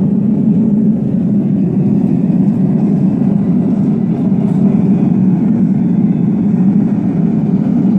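Homemade blown forge running: its electric blower and burner flame make a steady, even rushing noise that stays low in pitch and does not change.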